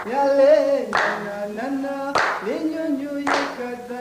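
Soundtrack of a voice singing long, wavering held notes, with a short, sharp, clap-like hit about once a second.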